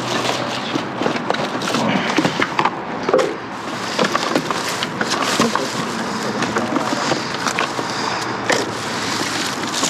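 Rummaging through dumpster contents: continuous rustling with many small knocks and clatters as items are shifted and pulled out.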